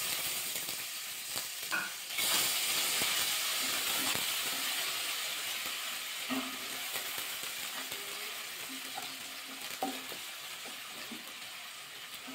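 Sliced onions sizzling as they fry in hot oil in a kadai, stirred with a wooden spatula. The sizzle jumps louder about two seconds in and then slowly dies down, with a few light knocks of the spatula against the pan.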